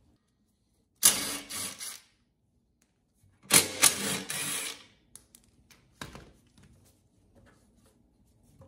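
Ryobi cordless drill/driver running in two bursts of about a second each, backing out bolts, with a thin steady motor whine over the rattle. A short knock follows about six seconds in.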